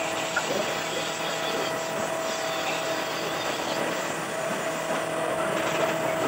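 Steady mechanical hum of running machinery, holding one constant tone without change.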